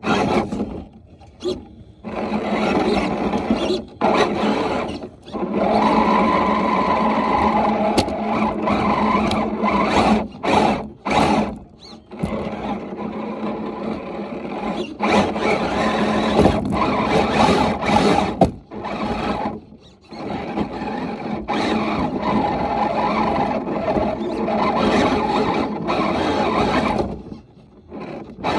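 Scale RC rock crawler's electric motor and geared drivetrain whining as it drives over dirt and rocks, stopping and starting with the throttle many times.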